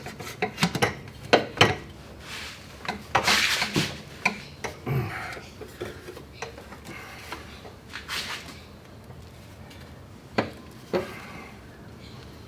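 Scattered clinks, knocks and scrapes of metal parts and tools being handled on a workbench. The knocks come thick at first, with a couple of short hissing scrapes, then thin out to two last knocks near the end.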